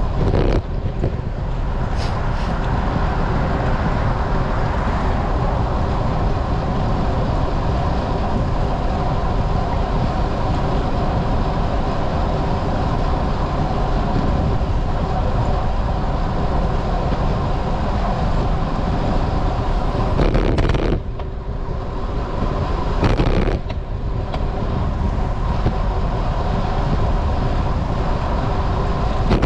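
Steady wind and road noise on a road bike's GoPro while riding, with a faint steady hum in it. Two brief louder surges come about 20 and 23 seconds in.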